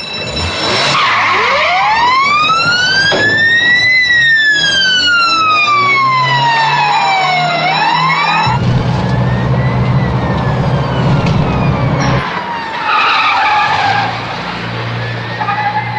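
Police car siren wailing in slow rises and falls, each taking three to four seconds, over cars being driven hard; an engine runs louder for a few seconds about halfway through.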